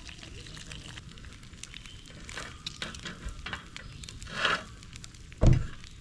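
Eggs sizzling in a skillet on a grate over a wood campfire, with the fire crackling in small ticks. A brief louder noise comes about four and a half seconds in, and a dull thump near the end.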